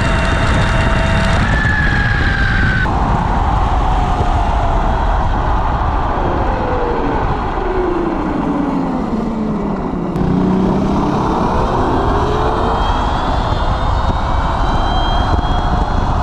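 Heavy wind noise on the microphone while riding an electric mini bike, with the electric motor's whine falling steadily in pitch as the bike slows, then, after a sudden change about ten seconds in, rising again as it accelerates.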